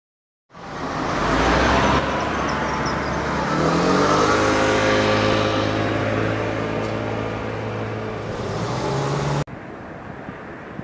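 A vehicle engine accelerating: its pitch climbs about three and a half seconds in, then holds steady, then climbs again just before the sound cuts off sharply about nine and a half seconds in.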